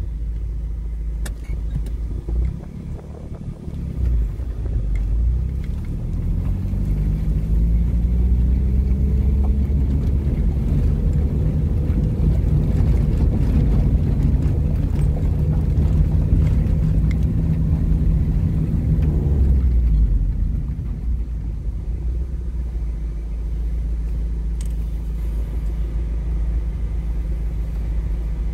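Car engine and tyre rumble heard from inside a moving vehicle on a road strewn with loose gravel. The engine note climbs steadily for several seconds as the car picks up speed, holds, then falls away about two-thirds of the way through as it eases off, leaving a steady low rumble.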